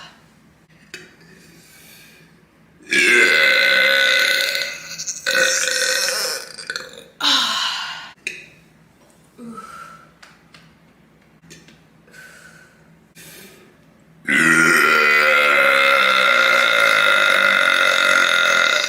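A woman burping loudly and at length. Three long burps come in the first half, followed by a few short faint ones. A single very long burp starts about two-thirds of the way in and is held for over four seconds. It is gas from chugging seltzer, with her stomach bloated.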